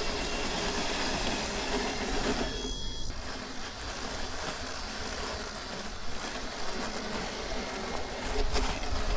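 Mammotion Yuka 2000 robot lawnmower running steadily, its electric blade and drive motors whirring as it cuts thick, long grass along the lawn's perimeter.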